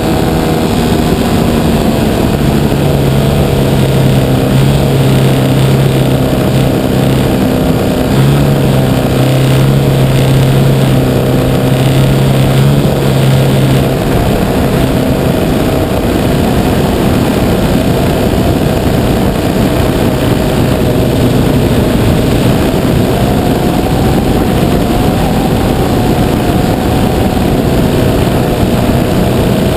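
Giant-scale RC Piper Cub's 3W 275cc two-stroke gas engine and propeller running in flight, heard close up over heavy wind rush. The steady engine note changes about halfway through as the plane banks.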